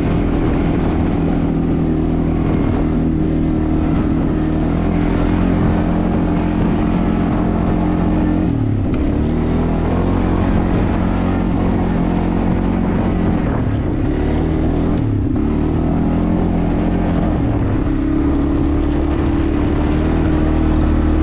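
An automatic four-wheel-drive ATV engine running under way. Its pitch dips and climbs back several times as the throttle is eased off and opened again.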